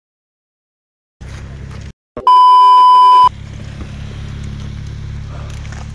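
A censor bleep: a loud, steady, pure beep about a second long, dubbed over a swear word a little over two seconds in. Before it the sound drops out to dead silence; after it comes a steady low rumble of background noise.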